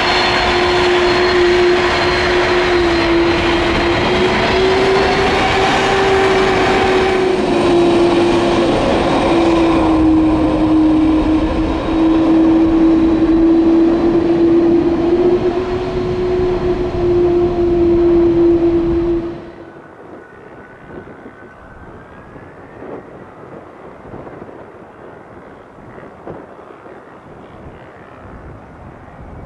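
Boeing 767 freighter's twin turbofan engines at taxi thrust close by: a steady engine drone with a wavering hum and a high whine. About two-thirds of the way through, the sound drops suddenly to faint distant engine noise.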